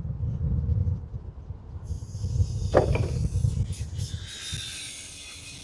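Rental electric scooter rolling along a path: a steady low rumble of wind on the microphone and wheel noise, with a hiss joining in about two seconds in and a short rising tone near the middle, fading somewhat toward the end.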